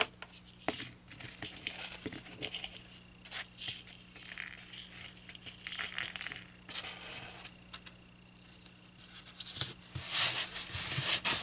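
Fabric rustling as it is pulled taut over a styrofoam board and the board is handled, with scattered light clicks and scrapes. The rubbing gets louder and busier near the end.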